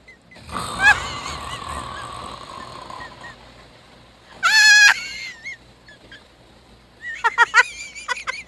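Person snoring with honking, whistling noises: a long wavering honk about half a second in that trails off, a louder short honk in the middle, and a quick run of short squeaky honks near the end.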